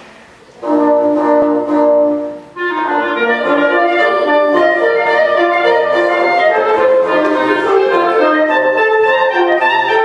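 Woodwind quintet playing: a held chord comes in about half a second in and breaks off near two and a half seconds, then the ensemble plays a lively passage of moving notes.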